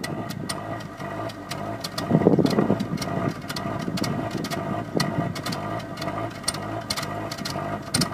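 2002 Mazda Protege5's 2.0 L four-cylinder engine idling unevenly, with irregular ticks over a steady hum and a brief louder rush about two seconds in. This is a rough idle that a code reader puts down to the mass airflow sensor.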